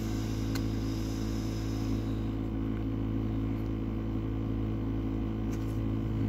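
A steady low machine hum, several level tones stacked together, with a couple of faint clicks.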